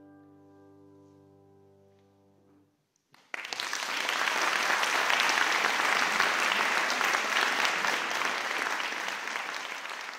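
A grand piano's last chord dies away. After a moment's silence, an audience applauds, starting suddenly about three seconds in and tapering off near the end.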